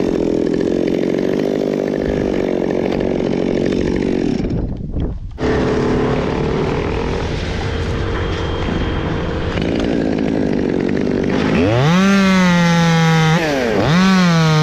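Chainsaw cutting through birch wood. The engine pitch drops as the chain bites in and holds lower under load, with a brief break about five seconds in. Near the end it revs back up to a higher steady pitch, dips once and climbs again.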